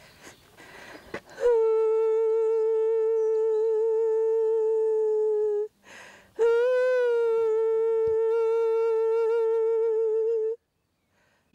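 A woman's voice holding two long high notes, each about four seconds, with a slight waver in the pitch and a breath between them; the second note swoops up at its start before settling.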